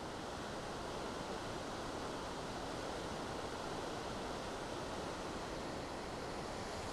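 Steady rush of whitewater rapids on the Cheoah River, an even, unbroken roar of water over rocks.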